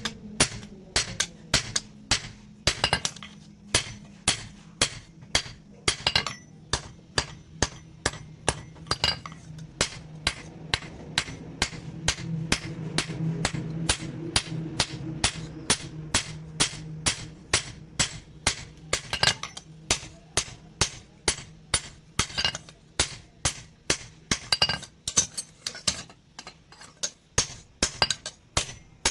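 Blacksmith's hand hammer striking steel from an old truck leaf spring on an anvil in a steady rhythm, about three blows a second, each with a metallic ring; every few seconds a blow rings out louder and longer. A steady low hum runs underneath, strongest in the middle.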